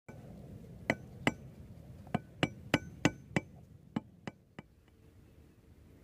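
A hard tool tapping, about eleven sharp knocks each with a short ring: two about a second in, then five in quick even succession, then four fainter ones trailing off.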